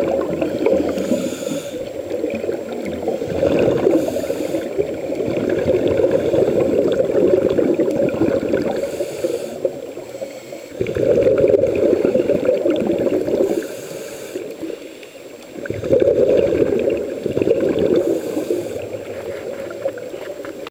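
Scuba diver breathing through a regulator underwater: a short hiss with each inhale, then a long gurgling rush of exhaled bubbles, a breath every four to five seconds.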